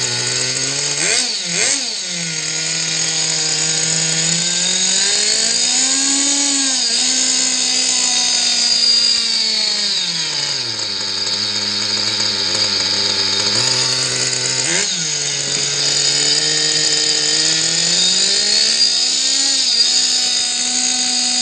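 Kyosho FW05 RC car's small nitro glow engine running on the bench. Its speed rises and falls slowly, with two quick throttle blips, one about a second and a half in and one past halfway. It is freshly started after flooding and is being bench-tuned, with a low-speed mixture the owner judges a little rich.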